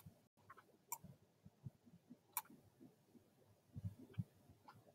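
Near silence with a few scattered clicks of a computer mouse, the clearest about a second in and near the middle, and a couple of soft low knocks near the end.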